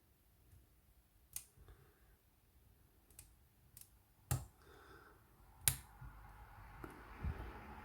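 Lock pick and tension wrench in a cabinet wafer lock: about six sharp, irregular small clicks and taps, the loudest a little past halfway, with soft handling noise over the last two seconds.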